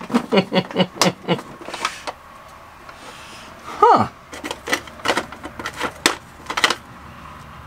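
Clear plastic tackle box being handled and opened: clusters of sharp plastic clicks and rattles from its latches and the lures inside, with a short falling hum from a man's voice about four seconds in.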